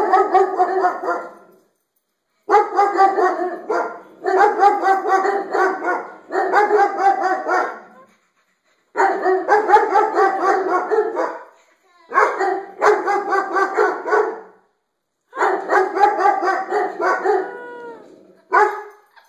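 Dogs barking repeatedly in stretches of one to two seconds with short pauses between, barking at their own reflections in a skylight.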